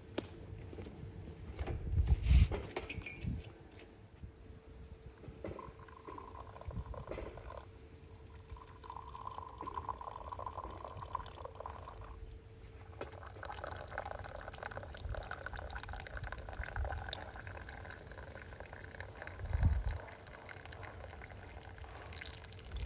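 Faint liquid sounds, with a few light clinks and knocks.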